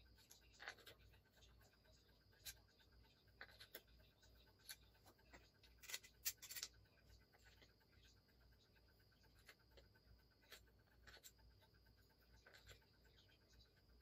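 Near silence broken by faint clicks and scrapes of metal parts handled by hand: an old vacuum cleaner motor's armature and end plate being fitted together. The loudest few clicks come about six seconds in.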